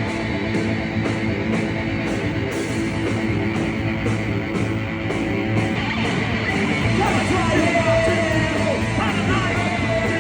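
Live rock band playing with electric guitars and drums, a cymbal struck about twice a second. A singer's voice comes in about six seconds in.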